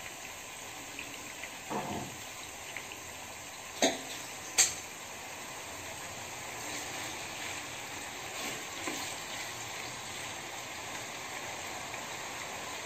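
Marinated chicken pieces sizzling steadily as they shallow-fry in sunflower oil in a pan, with two sharp clicks about four seconds in.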